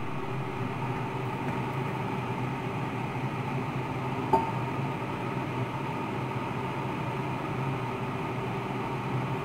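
Fish soup at a rolling boil in a stainless steel pot, a steady bubbling with a low hum underneath. One short sharp click about four seconds in.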